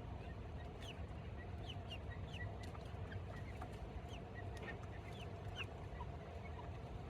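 Backyard chickens clucking, with many short, high chirps that fall in pitch scattered throughout, over a steady low rumble.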